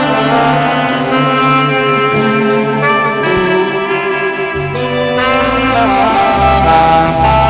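Instrumental music led by horns, holding steady notes, with a bass part coming in about two-thirds of the way through.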